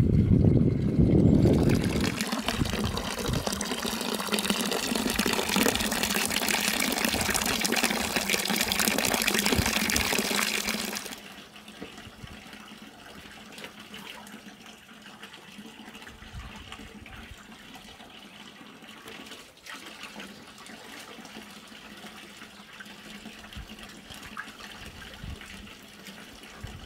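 Water running from the spout of a wooden log fountain and splashing into its log trough. The flow is loud and close for the first ten seconds, after a low rumble at the very start. About eleven seconds in it drops suddenly to a softer, steady splashing.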